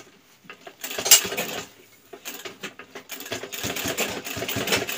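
Sewing machine: a few handling clicks and one sharp clack about a second in. Then, about three and a half seconds in, the machine starts stitching a jacket seam closed with a quick, even run of needle strokes.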